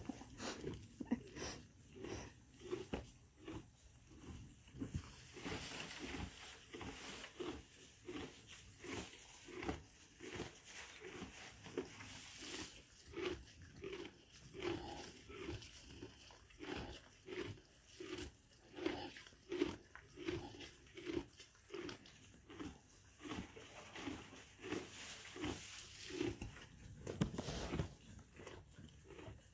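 Miniature donkey chewing hay: a steady rhythm of crunching chews, about one and a half a second.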